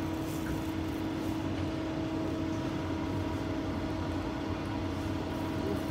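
Steady mechanical room hum with a constant tone, unchanging throughout.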